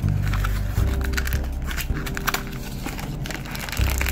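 Crinkling and rustling of a black plastic blind bag and its cardboard box as they are handled, over background music with low sustained notes.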